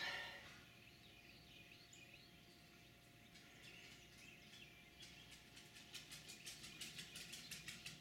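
Near silence: faint backyard ambience with a low steady hum. Over the second half comes a faint run of quick ticks or chirps, about four a second, growing a little louder.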